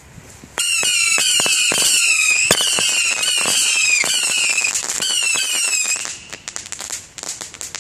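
Panda Saturn Missiles firework battery firing its small rockets in rapid succession, starting suddenly about half a second in: a really loud run of overlapping whistles with crackling. Near the end it thins to scattered crackling pops.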